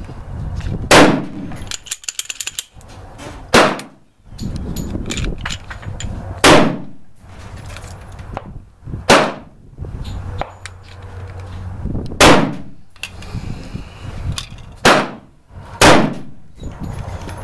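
9mm pistol shots from an FMK 9C, fired one at a time at an uneven pace, seven loud reports about one to three seconds apart, with the last two close together. Fainter clicks and knocks fall between the shots.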